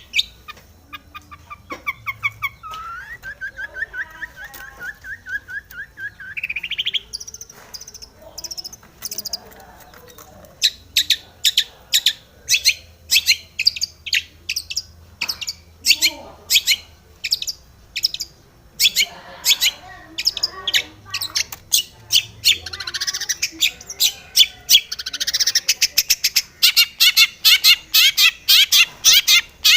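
Long-tailed shrike (cendet) singing a varied song: a warbling trill early on, then a long run of sharp, clicky notes, building into fast, dense chattering near the end.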